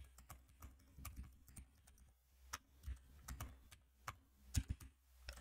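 Faint computer keyboard typing: scattered, irregular keystrokes.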